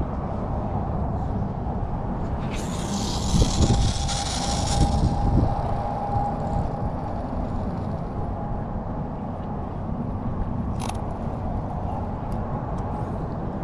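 Strong wind buffeting the microphone: a low, uneven rumble, with a stretch of higher hiss a few seconds in and a few faint clicks later.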